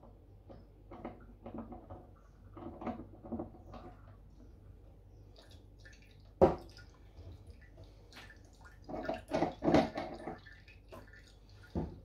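Water dripping and splashing from a kitchen mixer tap's body as its old brass compression gland bodies are unscrewed and lifted out. About halfway through, a sharp clink as a brass gland is set down on the tiled ledge.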